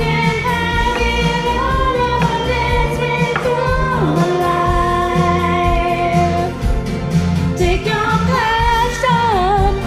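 Music: a song with a singing voice holding long, wavering notes over a steady low accompaniment.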